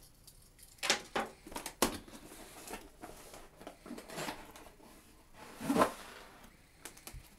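Cardboard laptop box being handled: turned over, slid on the table and its lid flap pulled open, a run of short scrapes and rustles, the loudest about two-thirds of the way through.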